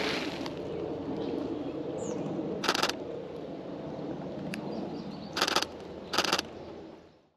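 Camera shutter firing three short bursts of rapid frames, over marsh ambience with a bird calling once. The sound fades out near the end.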